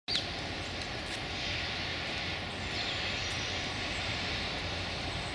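Steady low rumble of distant engine noise, the background hum of a city, with a couple of faint high chirps about halfway through.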